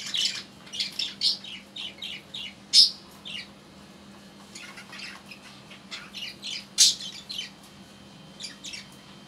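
Pet budgerigars chirping and chattering in rapid short high notes, with two loud squawks about three and seven seconds in.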